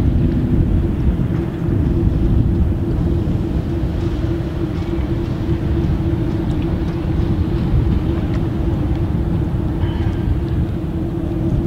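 Steady low drone of a lake freighter's engines under way, heard over a dense, uneven rumble of wind.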